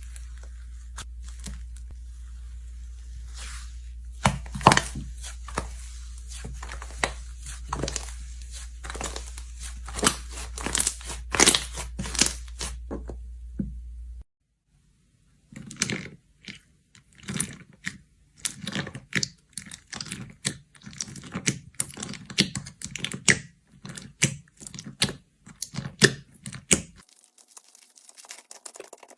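Slime being squished and poked by hand, giving a dense run of crackling clicks and pops. A steady low hum sits under the first half; after a brief break about halfway the popping resumes, then fades out near the end.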